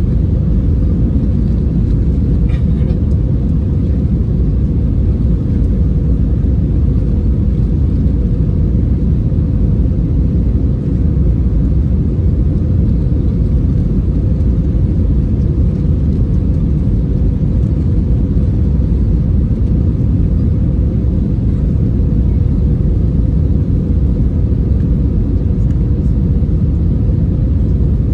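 Steady low rumble of an Airbus A320 airliner's cabin in flight: engine and airflow noise heard from inside, with a faint steady hum running under it.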